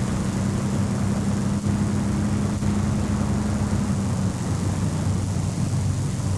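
Propeller aircraft's piston engines running with a steady, even drone, the sound of a bomber taxiing; one of its tones falls away about four seconds in.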